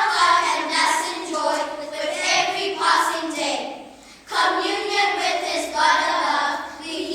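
A group of children singing together in two sung phrases, with a short pause for breath about four seconds in.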